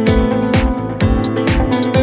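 Music with a steady beat: a kick drum about twice a second under sustained pitched instruments and cymbal hits.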